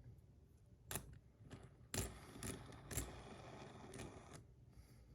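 Small metal parts of a stainless steel bar spinner being worked by hand: about five sharp clicks or taps roughly a second apart, with light scraping between them. The part is being flattened where the bearing rubs, so that it sits flush.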